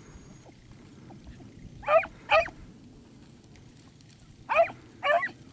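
Rabbit-hunting dog barking on a rabbit's trail: two pairs of short barks, one pair about two seconds in and another near the end.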